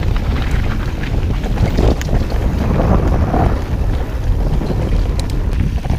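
Wind buffeting an action camera's microphone on a mountain bike descending a downhill trail: a loud, steady low rumble. A few sharp clicks and rattles from the bike come through, about two seconds in and again near the end.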